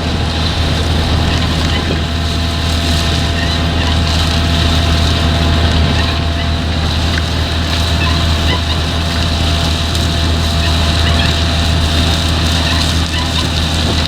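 Potato harvesting machinery running steadily: a deep, even diesel engine drone with a steady higher whine above it.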